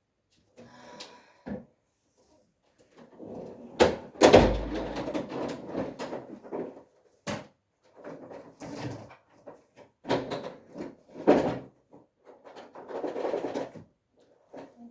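Household clatter: a run of separate knocks and bangs, like doors or drawers and objects being moved, with one heavy thud about four seconds in and rustling handling noise between. No vacuum cleaner motor is running.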